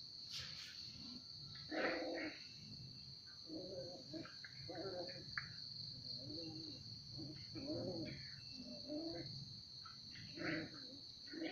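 Two puppies play-fighting, giving short growls every second or so, over a steady high buzz in the background.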